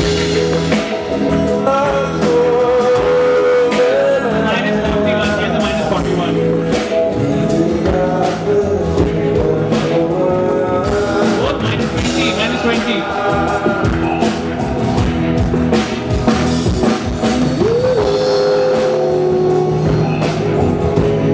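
Live band playing a rock-style song with drum kit and a sung vocal line, part of a stage sound check.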